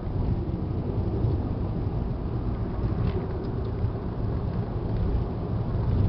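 Car engine and tyre rumble heard from inside the cabin while driving on a paved road: a steady low rumble.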